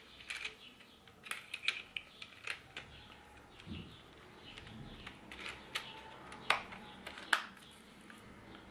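Scattered light clicks and taps of a small cutter attachment for a cordless screwdriver being handled, irregular and a few seconds apart, the two loudest knocks near the end.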